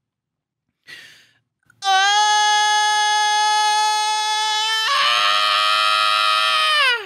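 A man's long sustained scream, the 'It is Wednesday my dudes' meme yell: a short breath in, then one high 'AAAAH' held steady for about three seconds, breaking to a lower, rougher pitch about five seconds in and sliding down as it ends.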